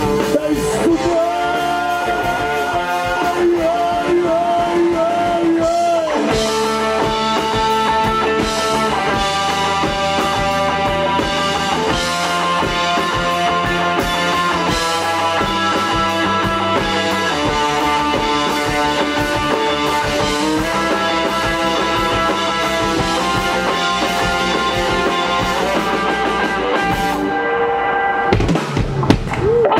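Live blues band playing: electric guitars, bass guitar and drum kit, with a harmonica played into a microphone. The cymbals drop out for a moment near the end.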